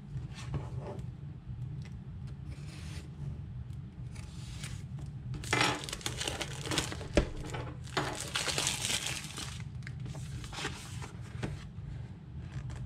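Clear plastic shrink-wrap being slit with a pointed tool, then torn, peeled and crinkled off a small cardboard box. It comes in scattered bursts, the loudest about six seconds in and again around eight to nine seconds, with a sharp tap in between.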